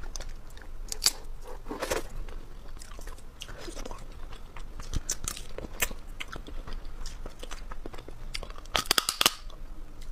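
Boiled hermit crab shells cracked and peeled apart by hand close to the microphone, with biting and chewing of the meat. Sharp crackles and snaps, loudest about a second in, two seconds in and near the end.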